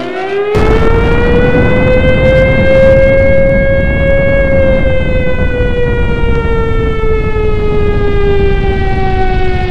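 Air-raid siren wailing: its pitch rises over the first four seconds or so, then slowly falls. A loud, heavy low rumble breaks in suddenly about half a second in and runs under it.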